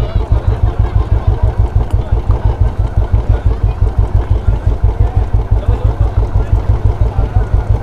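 Royal Enfield motorcycle engine running at low revs, a loud, steady, rapid thump from the exhaust as the bike creeps forward.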